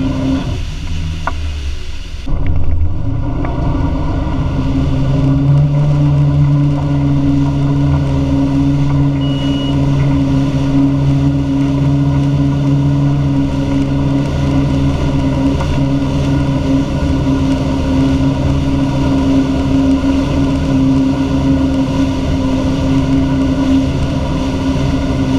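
Wake-surf boat's inboard engine running steadily under way, with the rush of its wake water. The engine note drops away for about two seconds near the start, then returns and holds steady.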